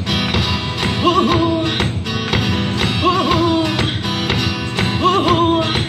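Live acoustic duo music: a steadily strummed acoustic guitar, with three short melodic phrases about two seconds apart over it, in a gap between sung lines.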